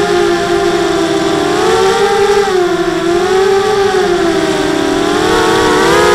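Blackout Mini H quadcopter's four T-motor 1806 2300kv brushless motors spinning 5x4 props, whining close to the onboard action camera. The several near-matching pitches waver up and down with throttle, rising about two seconds in, dipping, then climbing again near the end.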